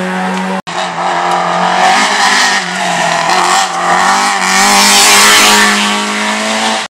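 Renault 4 rally car driven hard through a bend, its four-cylinder engine revving, the note rising and falling as it approaches and passes close by, loudest about five seconds in. The sound drops out for an instant just after half a second in.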